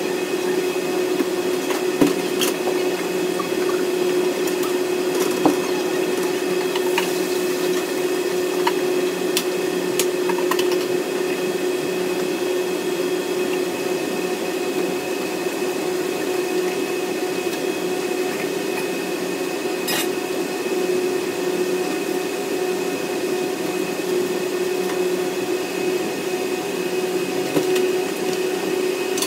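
Conveyor pizza oven running: a steady fan and motor hum with a constant tone, broken by a few faint clicks.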